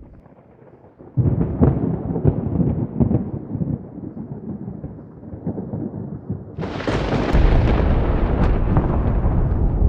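Thunder: a quiet first second, then a sudden loud crackling rumble about a second in that settles, and a second, sharper and louder clap near seven seconds that rolls on into a heavy rumble.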